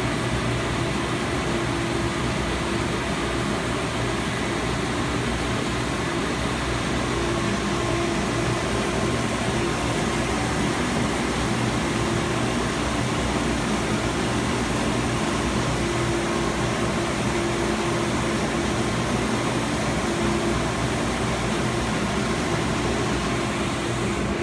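DMC Technosand 53-inch wide belt sander running steadily: an even, unbroken machine noise with a low hum under it.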